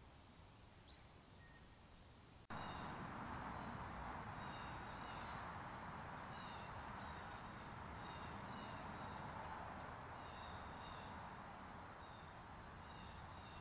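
Steady outdoor background hiss with faint, short, high chirps repeating every second or so. The recording cuts sharply to a louder clip about two and a half seconds in.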